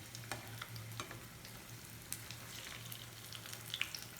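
Hot coconut oil sizzling steadily around breadcrumb-coated sprouted green gram bonda balls deep-frying in a pan, with scattered sharp crackles and pops. A low steady hum runs underneath.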